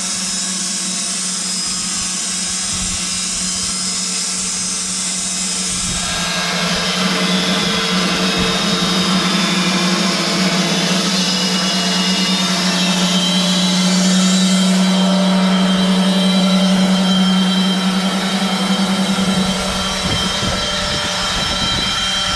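Sawmill machinery running: a steady motor hum with a broad noise over it, growing louder and fuller about six seconds in and easing again near the end.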